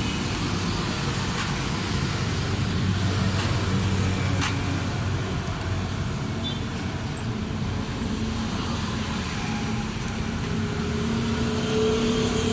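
A motor vehicle engine running steadily, with a few faint clicks.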